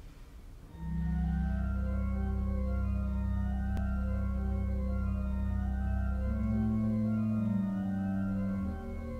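Pipe organ playing a slow pastorale, starting about a second in: long-held low pedal notes under sustained chords, with a quieter line of shorter notes moving above. The bass drops out briefly near the end.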